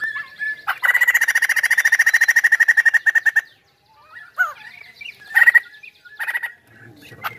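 White-crested laughingthrush calling: a loud, fast rattling chatter of about a dozen notes a second that lasts about two and a half seconds, then after a short pause several brief separate calls and whistles.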